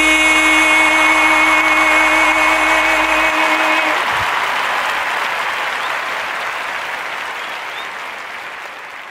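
Applause under a held sung note and chord of the backing music; the note and bass stop about four seconds in, and the applause fades away.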